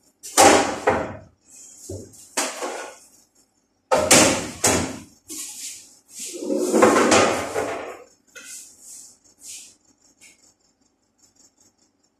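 Metal baking trays clattering and banging against steel kitchen counters: several loud knocks and scraping clangs, the longest about six seconds in, then lighter clinks near the end.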